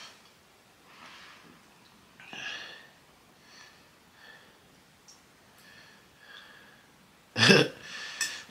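Mouth and breath sounds of a man eating spicy noodles: short, quiet breaths and mouth noises, one louder about two and a half seconds in, then a loud, sudden burst of breath about seven and a half seconds in.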